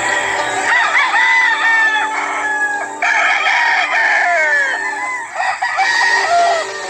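Gamefowl roosters crowing several times in quick succession, the crows gliding in pitch and partly overlapping.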